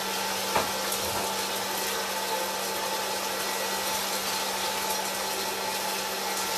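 Hot-air popcorn popper running: its fan blowing steadily with a constant low hum. A single short knock about half a second in.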